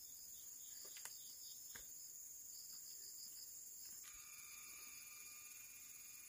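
Faint, steady, high-pitched insect chorus with a pulsing trill, and two faint clicks about a second in. About four seconds in the background changes and a faint steady hum joins.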